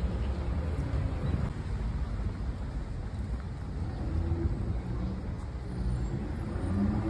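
City street traffic: cars driving past with a steady low rumble. Near the end a vehicle's engine rises in pitch as it speeds up.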